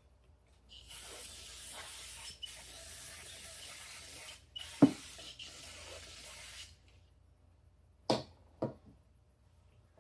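Pressurized spray hissing in long bursts while a carburetor is being worked on, broken twice, with a sharp knock about five seconds in. Two short clicks follow near the end.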